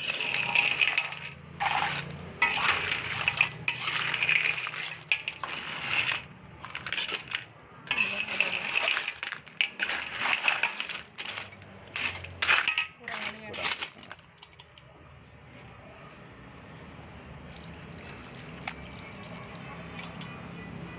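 Cockle shells and crab pieces clattering and clinking against each other and the metal wok as the cooked seafood is stirred and handled. This lasts for about the first fourteen seconds, then gives way to a quieter steady hiss.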